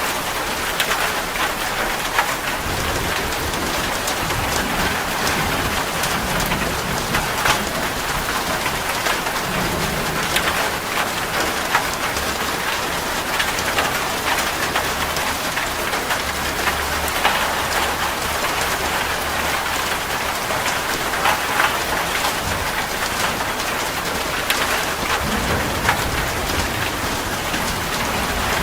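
Steady rain falling, with close drops ticking on a surface. A low rumble swells and fades several times underneath.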